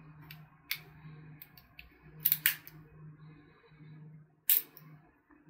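Sharp metallic clicks and snaps of a Parkside stainless-steel pliers multitool being handled: a few small clicks, a loud double click about two seconds in and another loud click near the end, over a steady low hum.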